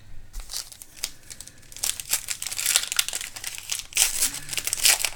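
Crinkling and tearing of a trading-card pack wrapper being opened by hand: a run of quick, irregular crackles that gets busier and louder about two seconds in.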